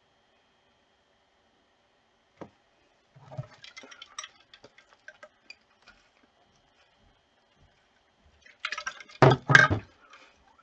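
A sharp click, then scattered light clicks and rattles, then a louder clatter of a few knocks near the end.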